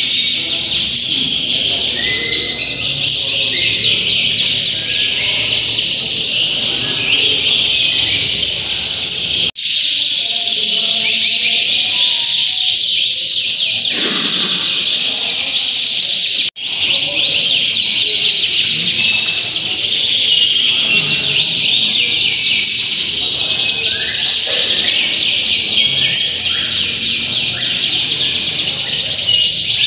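Several domestic canaries singing at once in a dense, loud chorus of rapid trills and chirps. It breaks off sharply for an instant twice, about ten and seventeen seconds in.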